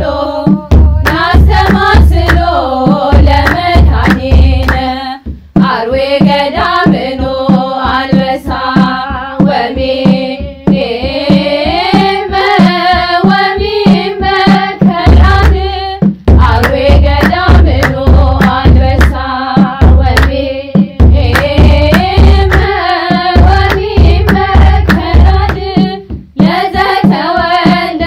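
A girls' choir singing an Ethiopian Orthodox Christmas hymn (mezmur), with steady beats of a kebero drum and hand claps. The drum and singing break off briefly three times between phrases.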